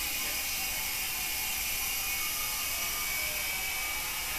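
HobbyKing DragonFly coaxial micro helicopter in flight: its small electric motors and twin counter-rotating rotors whirring in a steady high whine.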